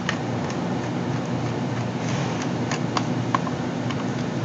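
Steady background hum, with a few faint, sharp clicks from a small screwdriver and fingers working the screws at the edges of the GPS unit's casing.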